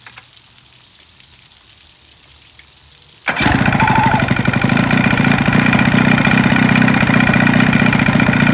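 Boat outboard motor started by its newly installed key ignition switch: after about three seconds of quiet it catches at once and then runs steadily, loud and evenly pulsing.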